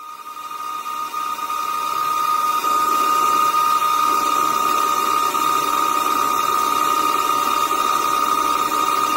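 DIY CNC lathe turning a metal handle: a steady high whine from the running machine over a hiss of cutting. It rises in loudness over the first two to three seconds and then holds steady.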